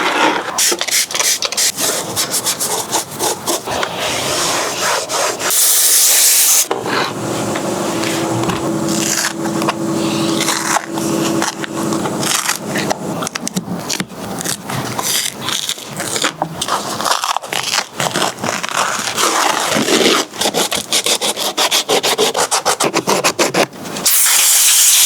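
Hand work on a car door armrest and door panel: continual scraping and rubbing with many small clicks and knocks, as trim and upholstery are worked loose. Two short hissing bursts, one about five seconds in and one near the end, and a steady hum for a few seconds in the middle.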